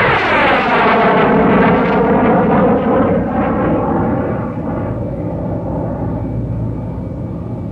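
Aircraft passing overhead: a loud rushing engine noise whose pitch sweeps downward over the first second or so, then holds steady and slowly fades.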